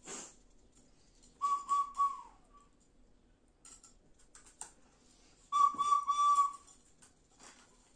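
A whistle blown twice, each a held, wavering note of about a second that sags in pitch as it ends. Light clinks of a spoon against dishes come in between.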